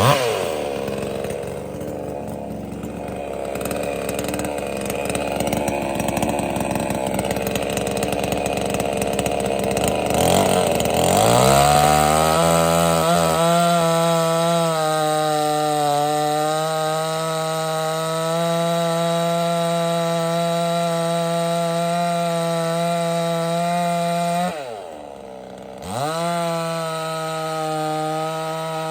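A 58cc two-stroke chainsaw runs hard, cutting into a large red oak log. For roughly the first ten seconds it is rough and lower-pitched, then the revs climb to a steady high whine. Near the end the throttle is briefly let off, so the revs fall away, then pick back up to full speed.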